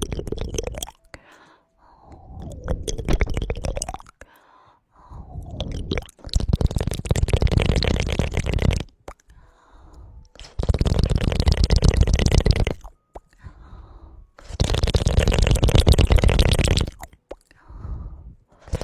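Close-miked ASMR crackling: three loud bursts of dense, crunching clicks, each two to three seconds long, with softer rustling sounds between them.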